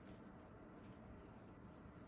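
Near silence: masking tape being peeled slowly off paper, making only a faint sound.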